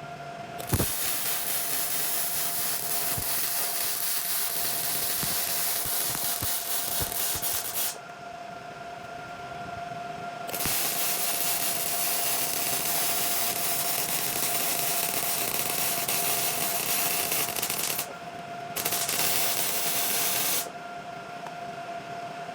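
Arc welding on steel tubing: the arc crackles and sizzles in three welds, the first two several seconds long and the last brief, with short pauses between them and a faint steady hum throughout. The welder blames paint left on the metal, which spoils the weld.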